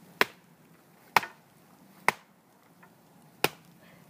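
Wood being chopped by hand: four sharp chops, about a second apart.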